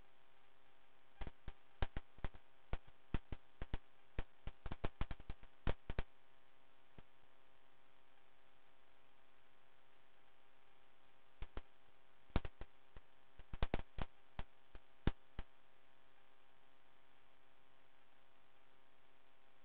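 Faint steady hum on the cockpit intercom/radio audio line, with clusters of sharp clicks from about one to six seconds in and again from about twelve to fifteen seconds in.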